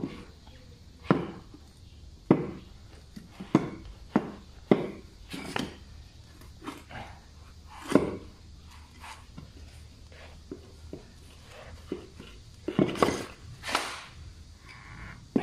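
Irregular sharp knocks and clicks of tools and parts being handled during a car shock absorber replacement, with a couple of longer rattling clatters about eight and thirteen seconds in.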